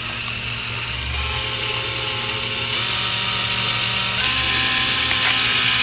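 Cordless drill with a gold twist bit boring into the hard steel of a pickup's front bumper. The motor's whine rises in pitch in steps and grows steadily louder as the trigger is squeezed harder.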